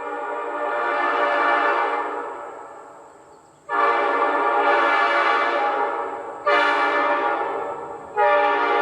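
Locomotive air horn sounding several notes together, blown in four blasts. The first is long and fades away, the next two are shorter, and the fourth starts near the end.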